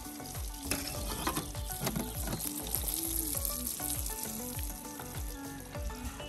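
Floured fish frying in hot oil in a frying pan, a steady sizzle, with a few light clicks in the first two seconds.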